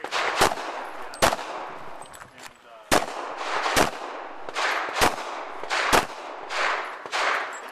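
Semi-automatic pistol firing six shots in a competition stage, in irregular pairs and singles a second or so apart, each shot trailing off in echo.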